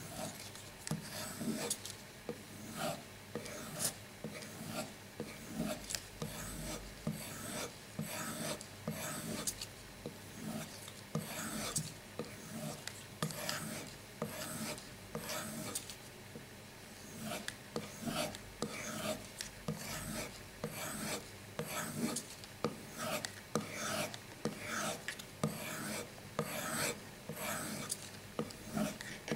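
Knife blade being stropped on a leather paddle strop loaded with white polishing compound, heard as a steady run of short, repeated rubbing strokes. This is a soft sharpening of the Buck Vantage's factory V edge on leather, not on a stone.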